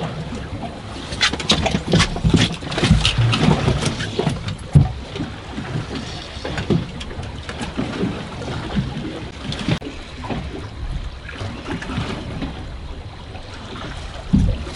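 Small fishing boat at sea in choppy water: a steady, uneven low rumble of water against the hull and wind, with scattered sharp knocks and clicks, most of them in the first few seconds.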